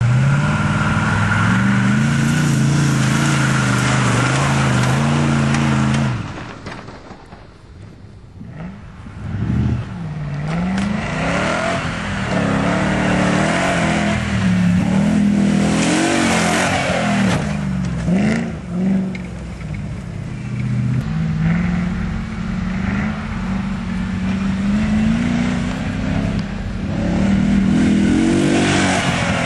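Nissan Patrol 4x4's engine revving up and down as it drives off-road. It is loud and steady at first, drops away sharply about six seconds in, then picks up again with repeated rises and falls in pitch.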